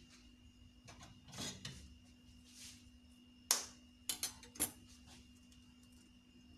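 A handful of sharp taps of a knife against an eggshell, one about three and a half seconds in and a quick run of three or four more just after, cracking an egg open; before them, a soft rustle of handling.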